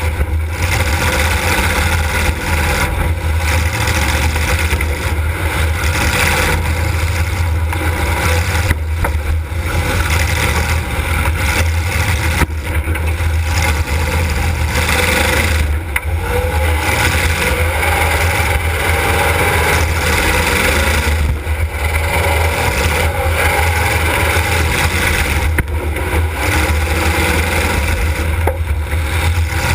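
Demolition derby car's engine running loud and steady, heard from inside the car, with brief dips every few seconds.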